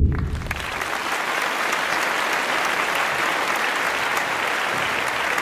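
A large audience applauding, a dense, even clapping that starts abruptly and holds steady.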